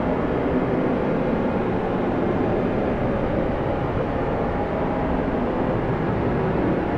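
Strong blizzard wind blowing steadily: an even, low rushing noise with no breaks or distinct gusts.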